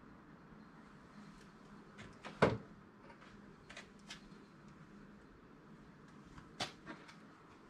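A few short, sharp knocks and clicks from handling welding gear, the loudest one about two and a half seconds in, over a faint steady hum.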